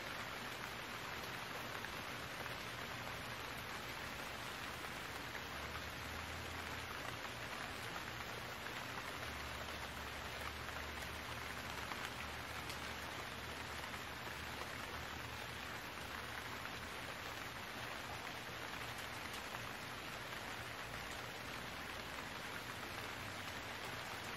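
Steady rain falling, an even hiss. Underneath is a faint low machine drone that grows a little stronger for a while about a third of the way in.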